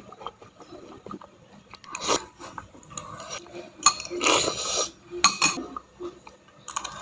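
Metal utensils clinking against a bowl of spicy instant noodles, with scattered sharp clicks and a few short noisy eating sounds in between.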